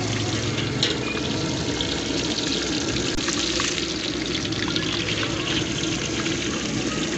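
Fish deep-frying in a large steel wok of hot oil: a steady sizzle and crackle of bubbling oil.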